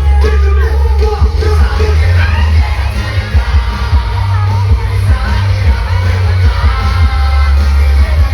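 Live pop concert over a loud sound system: music with heavy, steady bass and a singing voice, with the crowd yelling along.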